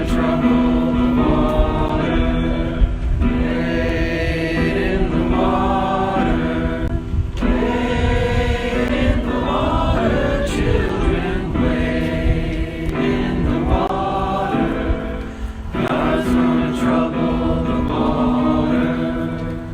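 A group of people singing a hymn together, in phrases of a second or two with short breaths between.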